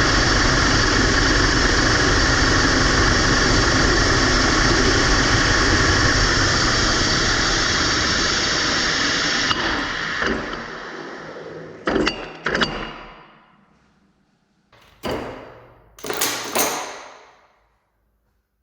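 Lathe spinning a GoPro camera in its chuck, a loud steady rush of machine and air noise that cuts off about nine and a half seconds in and dies away as the spindle runs down. Several sharp knocks and clatters follow near the end.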